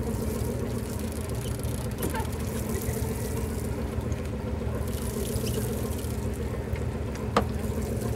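A boat's engine idling steadily: a low, even drone with water sloshing faintly. One sharp click sounds about seven seconds in.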